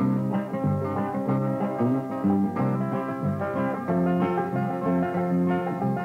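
Country-style instrumental music with plucked strings, playing quick successive notes.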